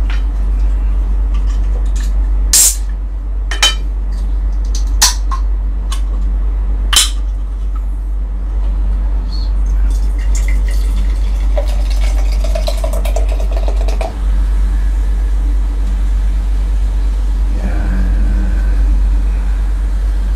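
A few sharp clinks of tableware, plates and utensils being handled, over a steady loud low hum.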